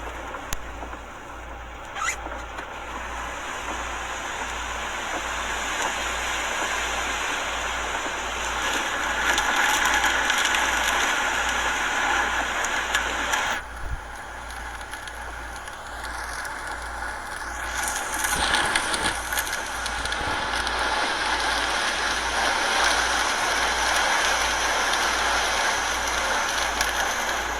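Hurricane wind howling in gusts, with a high whistling tone that swells and fades. It is loudest about ten seconds in and again from about eighteen seconds on.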